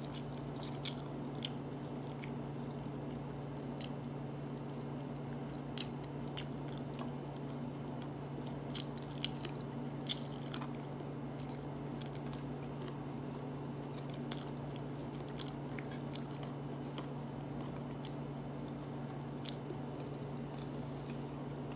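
A person chewing a mouthful of lamb and rice, with scattered small mouth clicks and smacks, over a steady low hum.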